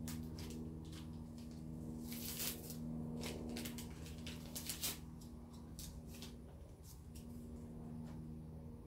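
Paper tea-bag wrapper being opened and crinkled in short rustling bursts, over a low steady hum.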